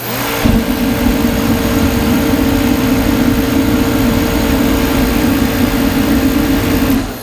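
DeWalt forced-air torpedo heater starting up and firing: the fan motor spins up and the burner runs loudly and steadily, now lighting after its pump pressure was turned up a turn and a half. About seven seconds in it is switched off and the motor's whine falls away as the fan winds down.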